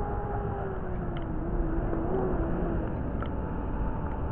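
A motor's steady drone, its pitch sagging slightly in the middle, over a low rumble of wind on the microphone, with two faint knocks.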